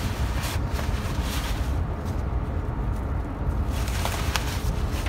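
Rustling and crinkling of a reflective windshield sunshade being folded up by hand, mostly in the first two seconds and again about four seconds in, over a steady low rumble inside the car.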